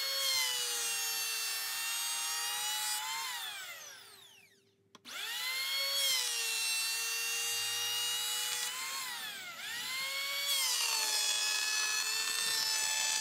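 WEN electric hand planer running with a high whine as it planes a birdseye maple board, its pitch dipping briefly now and then. About three seconds in it winds down to a stop, then starts again a second or so later and runs on.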